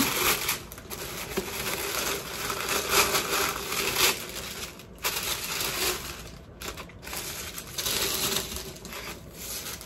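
Thin tissue wrapping paper rustling and crinkling as it is unfolded and lifted out of a shoe box. It comes in stretches, with brief pauses between handfuls.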